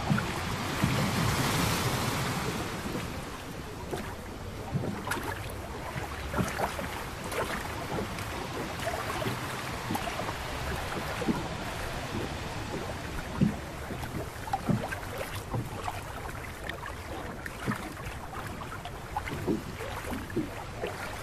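Sea water rushing and splashing along the side of a small fishing boat, with wind on the microphone, louder in the first couple of seconds. Scattered short knocks and thuds come through now and then.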